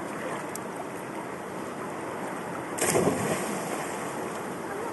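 River water flowing with a steady rushing noise, with a brief louder burst of noise a little past halfway.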